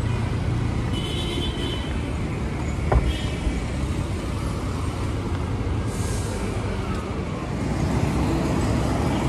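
Road traffic on a city street: cars and motorcycles passing with a steady low rumble, and a single sharp knock about three seconds in.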